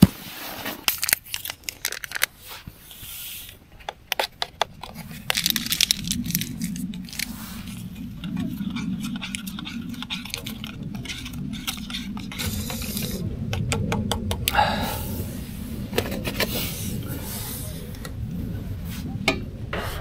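A stirrer scraping and clinking inside a small metal cup as instant coffee is stirred. Before that come scattered sharp knocks and clicks from handling stiff leather hiking boots, and a steady low hum runs underneath from about five seconds in.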